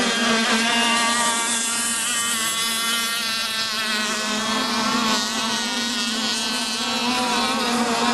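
Engines of radio-controlled model racing boats running flat out on the water: a high, steady whine from more than one engine, each wavering up and down in pitch.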